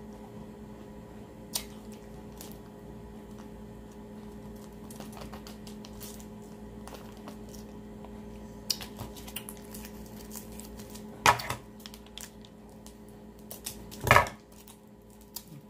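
Plastic freeze-pop sleeves handled and sucked on, with scattered small clicks and taps over a steady low hum. Two louder clatters come about eleven and fourteen seconds in, the second as the next sleeve is picked up to be cut open.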